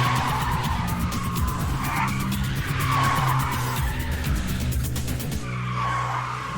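Cartoon background music under several car tyre-squeal sound effects, repeated skids a second or two apart.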